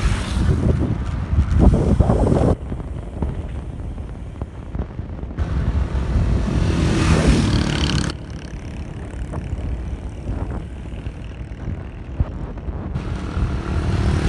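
Riding noise: a vehicle running with wind rushing over the microphone. It cuts abruptly between louder and quieter stretches several times.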